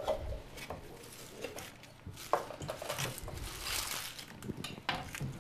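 Kitchen knives chopping vegetables on cutting boards: irregular light taps and knocks as the blades strike the boards, with several people cutting at once.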